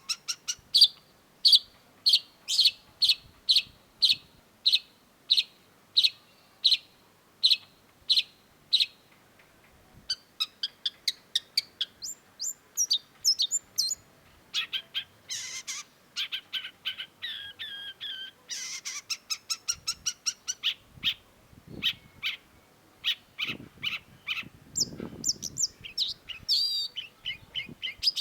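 Long-tailed shrike singing. It opens with a run of harsh, evenly spaced notes, about two a second, then breaks into rapid, varied chattering phrases from about ten seconds in.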